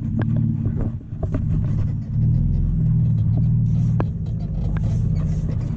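An engine running steadily with a low hum, getting louder about two seconds in, with scattered clicks and knocks over it.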